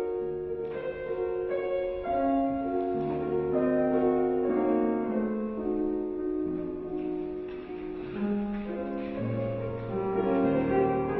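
Piano accompaniment for a ballet class, playing a slow classical melody of held notes over a bass line.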